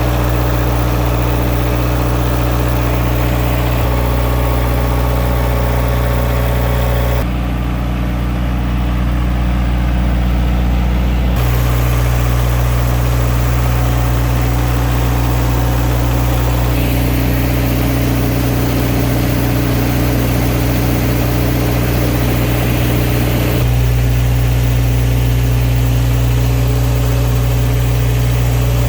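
Wacker Neuson G50 mobile generator's diesel engine running at a steady governed speed, a constant loud hum. Its tone changes abruptly a few times, but the engine speed stays the same.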